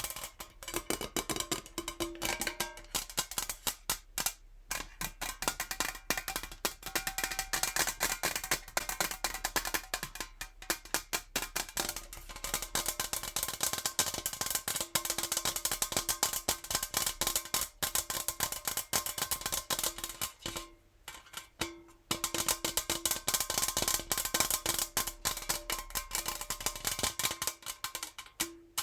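Natural fingernails tapping very fast on a metal jar: a dense stream of quick clicks, with a faint ring from the jar at times. The tapping stops briefly a few times.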